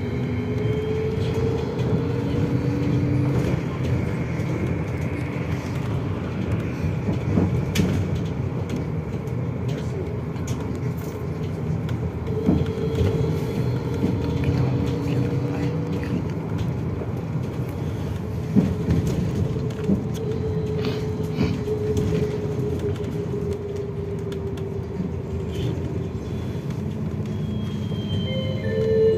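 BKM 32100D trolleybus under way, heard from inside: a steady rumble of tyres and body, with the electric traction drive's whine slowly rising and falling in pitch, and a few knocks and rattles.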